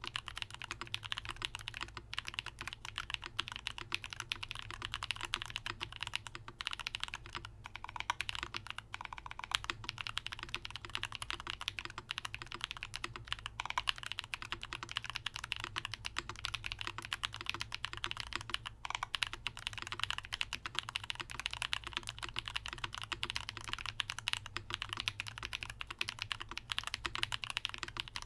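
Continuous typing on an LVL TYPE-01/80 Proto3 custom mechanical keyboard with Holy Panda tactile switches lubed with 205g0, GMK doubleshot ABS keycaps and Durock stabilizers lubed with Permatex and given the tape mod. The keystrokes come in a rapid, unbroken stream throughout.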